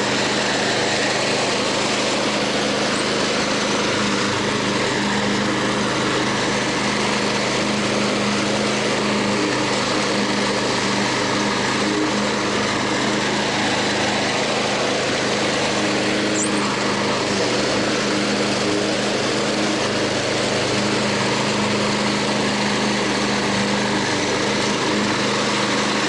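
2000 Snapper self-propelled mower's Briggs & Stratton Intek 6.0 OHV engine running steadily at a constant speed while mowing, on freshly changed oil.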